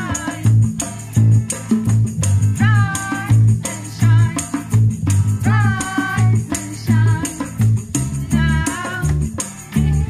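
Live acoustic band music: a woman singing long, wavering held notes over strummed acoustic guitar, electric bass and bongos, with a hand shaker rattling steadily in the rhythm.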